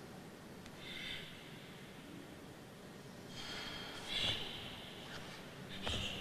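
A karateka's short, forceful breaths timed with the techniques of the Tekki Nidan kata, coming about a second in, again around three to four seconds in, and near the end. Two sharp knocks fall with the later breaths, the louder one about four seconds in.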